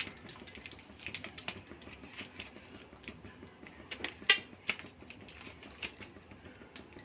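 Light, irregular clicks and crinkles of a plastic milk packet filled with batter being handled as a rubber band is wound around its mouth, with one louder click about four seconds in.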